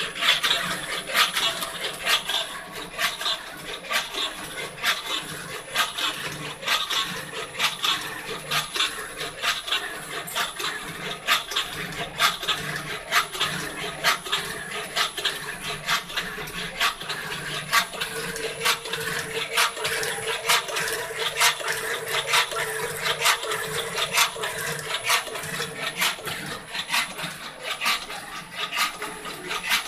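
Small CNC machine at work: a dense run of irregular clicks and scraping with a steady high whine, and a lower steady tone joining about 18 seconds in.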